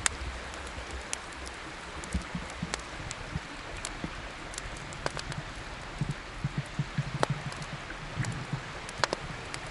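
Campfire burning: a steady hiss with scattered sharp crackling pops of the wood, and a few soft low knocks in the second half.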